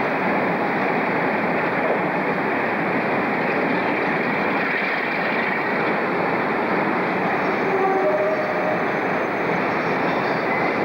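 Class 47 diesel locomotive under power, pulling a rake of passenger coaches out: a steady loud engine and wheel-on-rail noise. A few faint metallic squeals about eight seconds in.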